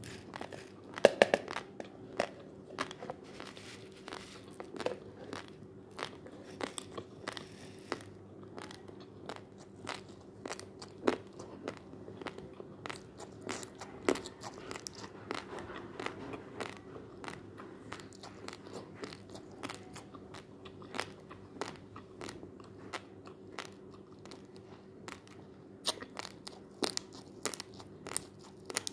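Raw basmati rice grains being chewed, with irregular sharp crunches; the loudest cluster comes about a second in.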